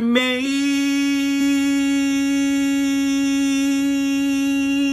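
A man's voice holding one long note of a song, rising onto it about half a second in and then held steady in pitch.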